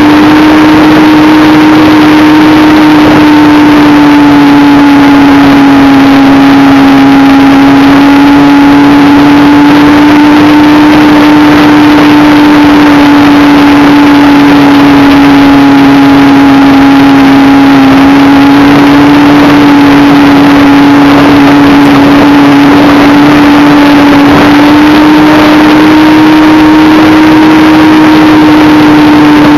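Motor of a radio-controlled Me 163 model plane in flight, heard from a camera mounted on the airframe. It holds a loud, steady hum whose pitch wavers only slightly, over a rush of wind noise.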